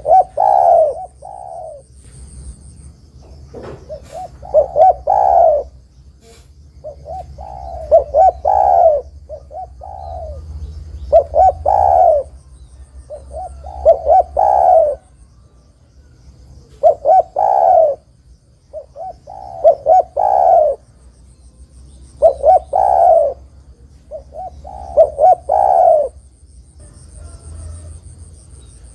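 Spotted dove cooing: short phrases of a few notes, repeated about every two and a half to three seconds.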